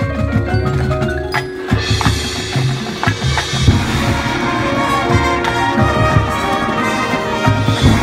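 High school marching band playing live: front-ensemble marimbas and other mallet percussion with drums and winds, a sharp hit about a second and a half in and the band growing fuller from about two seconds in.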